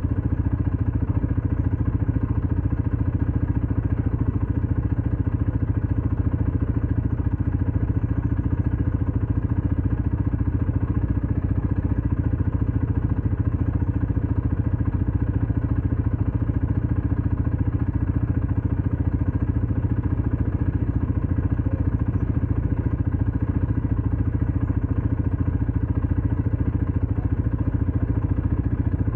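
ATV engine running at a steady speed, its low, even drone holding one pitch without revving up or down.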